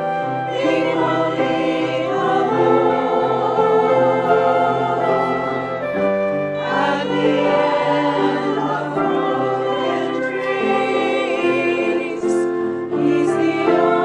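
A choir singing sacred music over sustained low accompanying notes.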